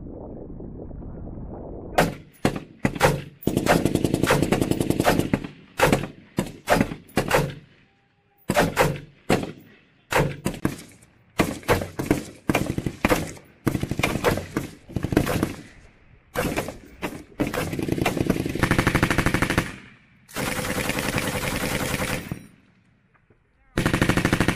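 Live fire from M16A4 service rifles and M240B belt-fed machine guns: after a low rumble, the firing starts about two seconds in as sharp single shots and short bursts, then several long automatic bursts of one to two seconds each near the end.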